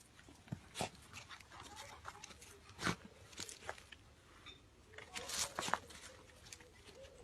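A dachshund moving about at play: scattered clicks, taps and scuffles, busiest about five seconds in.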